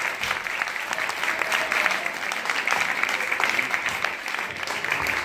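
Audience applauding: steady, dense hand-clapping.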